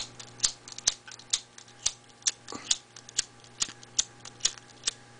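Empty disposable lighter's flint wheel being flicked again and again with the thumb: a sharp click about twice a second, around a dozen strikes, stopping shortly before the end. The lighter is out of fuel, so the strikes throw sparks without lighting.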